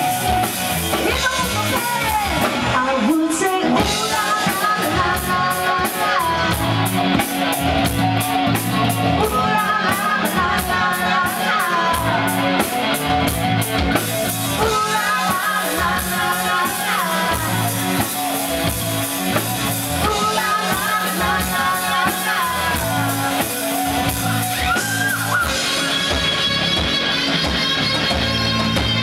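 Live rock band playing, with a woman singing lead over electric guitar, keyboard and a steady beat. Near the end the singing stops and the electric guitar carries on alone in front.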